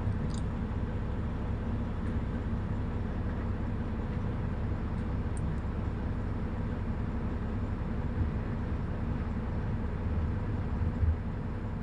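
Heavy diesel engine running steadily with a low rumble, heard from inside a machine's cab.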